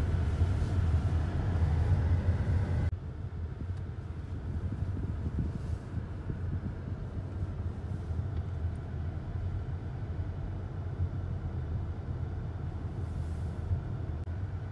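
Car cabin noise while driving: a steady low engine and road rumble, which drops suddenly to a quieter level about three seconds in.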